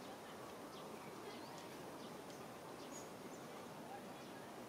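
Faint outdoor background noise, steady and even, with a few soft, short high chirps scattered through it.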